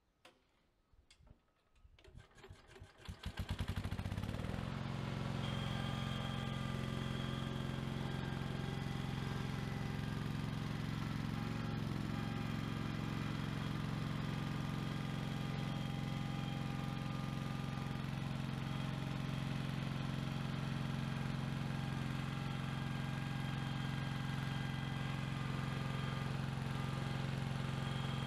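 The engine of a Cub Cadet garden-tractor forklift is cranked over by its starter, catches about three and a half seconds in, and then runs steadily.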